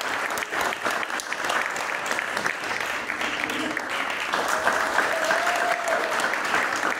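Steady applause from a group of people clapping, with a long drawn-out cheer rising over it about four and a half seconds in.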